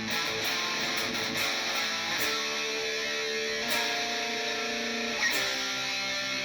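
Epiphone SG Modern electric guitar played through an amp on the bridge pickup: a quick run of lead notes, then a few long held notes.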